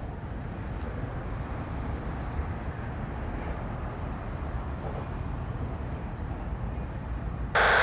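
Steady low rumble of a slow-moving freight train. Near the end comes a short, loud pitched sound lasting under half a second.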